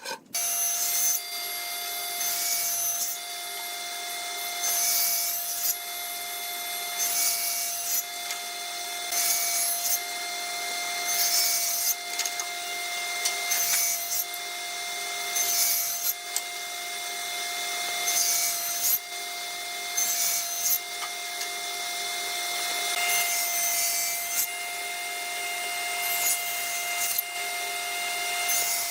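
Wood being worked with a power tool: a steady motor whine with a rasping cut into the wood repeated about every two seconds.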